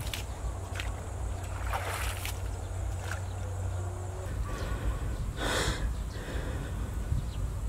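Stones and mud being scooped out of a shallow, trickling canal channel by hand: a few scattered scrapes and splashes over a steady low rumble.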